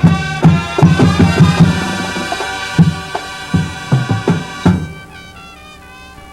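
High school marching band playing: loud sustained brass chords punctuated by sharp drum hits, then about five seconds in dropping suddenly to a softer passage with a lighter melodic line.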